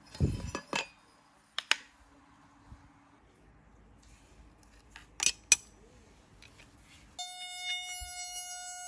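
Clicks and knocks from a metal speed square and a small wooden stick being handled and set down on a wooden tabletop. About seven seconds in, an Ozito RTR-4100 rotary tool switches on and runs with a steady high-pitched whine.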